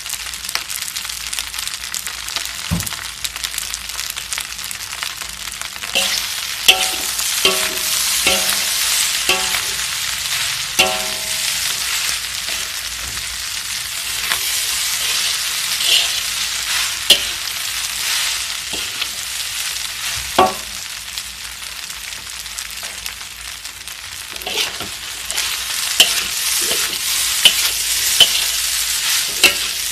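Fried rice sizzling in a wok while a metal spatula stirs and tosses it, with frequent sharp clinks and scrapes of the spatula against the wok.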